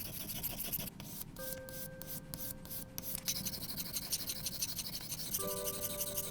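Fast back-and-forth rubbing strokes on a hard surface, with several short pauses between about one and three seconds in, over soft background music with held notes.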